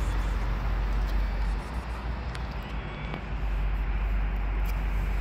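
Steady outdoor background noise with a low rumble, like street ambience, with a few faint clicks.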